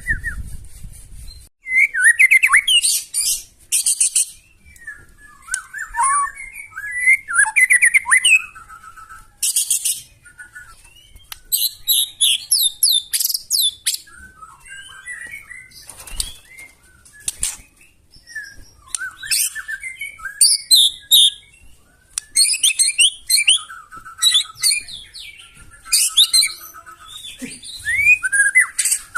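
White-rumped shama (murai batu) singing in phrases of whistled notes, rapid trills and short harsh, buzzy bursts, with brief pauses between phrases. This is the rough, rapid-fire song the bird-keeping hobby calls "nembak kasar".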